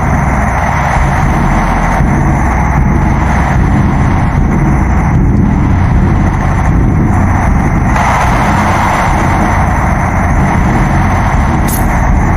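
A loud, steady, distorted rumbling noise with a heavy low end, used as a sound effect.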